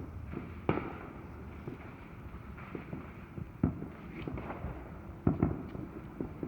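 Distant fireworks going off: a scatter of irregular sharp pops and bangs, the loudest about three and a half seconds and five seconds in.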